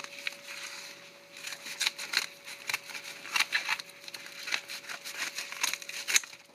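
Scissors cutting along the edge of a padded mailer envelope: a run of crisp, irregular snips and paper crunches, about two or three a second, starting about a second in.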